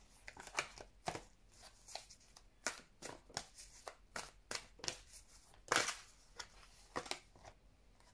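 A deck of tarot cards being shuffled by hand: irregular soft flicks and slaps of card on card, about one or two a second, with the loudest slap just under six seconds in.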